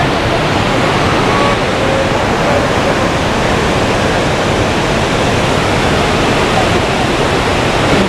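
Chitrakoot Falls on the Indravati River thundering close by in heavy, silt-brown flood, a loud steady rush of falling water and spray. It comes in suddenly at the start.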